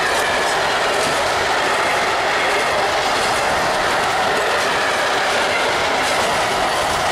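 Container freight train's wagons rolling past close by: a steady, loud noise of steel wheels running on the rails, with a faint high wheel squeal coming and going.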